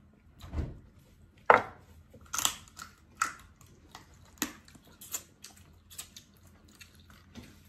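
Close-miked eating sounds of steamed lobster and crab being picked from the shell and chewed: a string of irregular short, sharp clicks and smacks, the loudest about one and a half seconds in.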